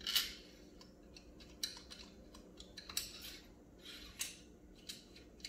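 Light metal clinks and scrapes: long steel through-bolts rattling together in the hand and against the motor's end bell as they are pushed back into it, one sharper clink just after the start.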